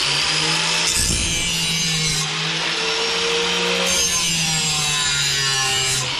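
Electric angle grinder fitted with an aggressive carbide wheel, running at full speed and grinding the edge of a steel lawn mower blade clamped in a sharpening jig. A steady motor hum under a harsh grinding hiss, whose texture shifts a few times as the wheel works along the edge.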